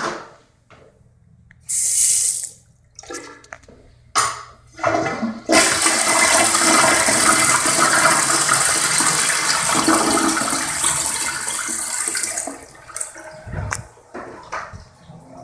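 Crane Galaxy toilet flushing: a loud rush of water through the bowl lasting about seven seconds, then tailing off. A few low thumps follow near the end.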